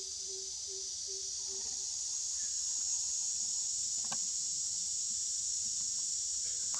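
Steady high-pitched insect chorus, crickets or cicadas, droning without a break. A low note pulses about three times a second at first and stops about two seconds in.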